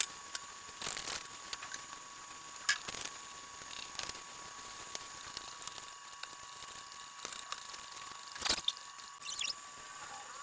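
Light, scattered clicks and taps of kitchen utensils and bowls being handled during food prep, over a faint steady hiss.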